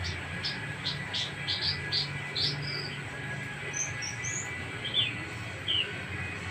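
Javan bush lark (branjangan) singing: a quick run of short chirping notes for about two and a half seconds, then a few scattered higher whistled notes, over a low steady hum.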